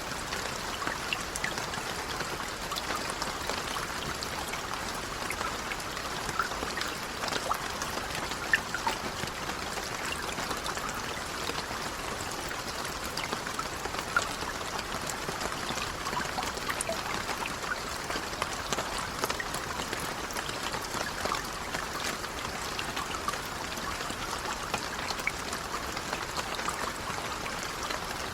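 Light rain falling steadily, a soft even patter with many small individual drops ticking through it.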